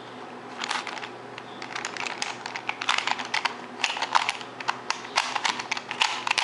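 Rubik's cube being turned quickly by hand: its plastic layers click and clack in a rapid, uneven run, starting about half a second in.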